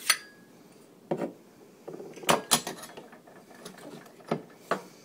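Stainless steel suppressor parts clinking and knocking as the can is taken apart by hand: a sharp metallic click with a brief ring at the start, then several separate knocks and clicks as the pieces are handled.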